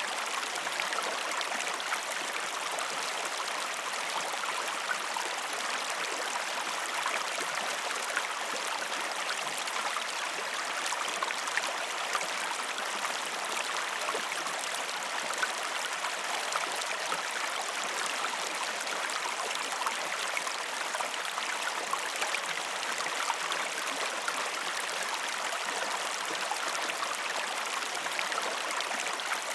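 Waterfall: falling water splashing in a steady, even rush with fine spattering detail.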